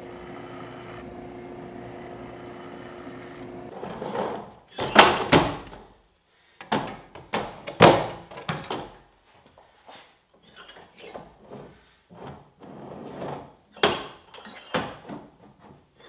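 Benchtop belt sander running steadily for the first few seconds, then a run of irregular sharp wooden knocks and clunks as the heavy sculpted wooden post and its foot pieces are handled and fitted together.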